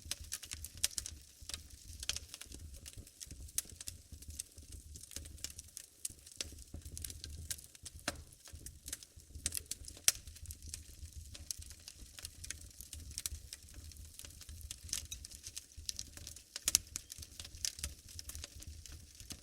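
Wood fire burning in a fireplace, crackling and popping irregularly over a low rumble, with a few louder pops.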